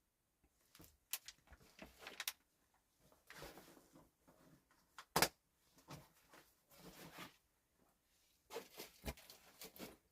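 Irregular handling noises: bursts of rustling with short clicks and knocks, the sharpest a single knock about five seconds in.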